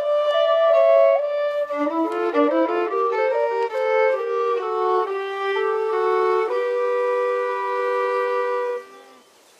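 Violin music: a quick run of notes, then two long notes held together, fading out about nine seconds in.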